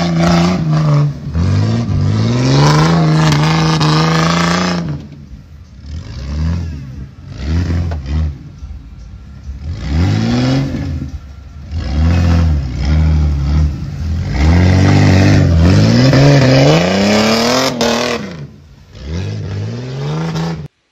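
Off-road 4x4's engine revved hard again and again as it churns through deep mud, with the wash of tyres spinning and throwing mud. A long high rev opens, then shorter rising-and-falling blips, then another long high rev near the end.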